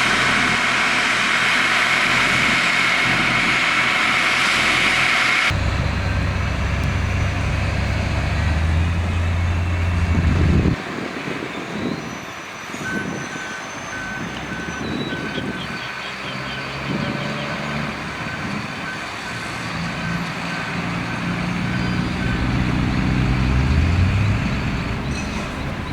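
Heavy diesel construction machinery running. A loud hiss with a steady tone opens and cuts off suddenly after about five seconds, giving way to deep engine sound that shifts abruptly partway through. In the second half a reversing alarm beeps rapidly and steadily for about ten seconds.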